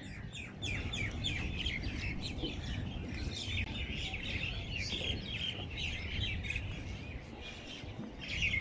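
Many small birds chirping and twittering at once: a dense chorus of quick, high chirps over a low background rumble.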